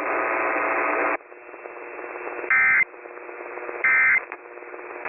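About a second of loud radio static, then, about two and a half seconds in, two short, shrill bursts of the Emergency Alert System's end-of-message data signal, warbling digital tones about a second and a third apart. They mark the end of the tornado warning. The audio is heard over a narrow-band radio stream with a faint steady hum underneath.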